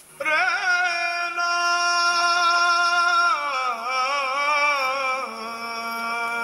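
A singing voice, heard as part of music, holding long notes with a strong vibrato. It comes in suddenly just after the start, dips in pitch about halfway through and settles on a lower note near the end.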